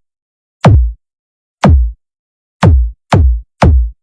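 Electronic kick drum hits, each a sharp click falling in pitch into a deep bass thump, played alone as a sound system's low-frequency test. Three hits a second apart, then quickening to two a second near the end.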